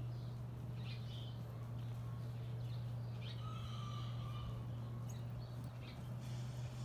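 Horse trotting on soft dirt footing, its hoofbeats muffled, over a steady low hum. A few short bird calls come through about a second in and again around three to four seconds in.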